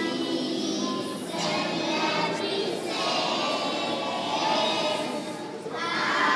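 A class of young kindergarten children singing together as a group.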